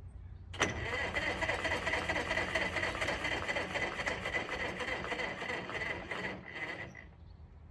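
Electric starter cranking the two-cylinder gasoline pony motor of a Caterpillar D4-7U crawler, a steady whirring with a high whine. It starts with a click about half a second in and stops near the end. The motor turns over but never fires.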